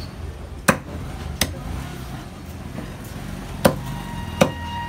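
Large knife chopping raw chicken on a wooden stump chopping block: four sharp chops in two pairs, each pair about three quarters of a second apart.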